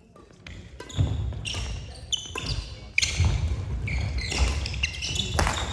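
Badminton rally: sharp racket hits on the shuttlecock, with shoes squeaking and feet thudding on the wooden court floor, starting about a second in.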